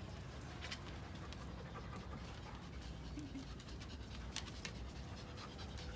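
Dogs panting, with a couple of short clicks about a second in and again past four seconds.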